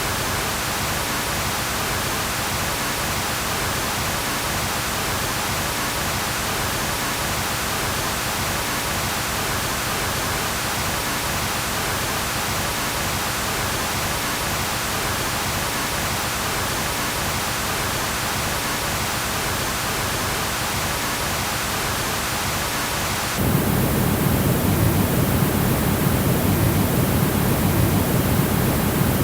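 Steady, even hiss of noise that starts abruptly; about 23 seconds in it switches suddenly to a louder, deeper rushing noise with less hiss.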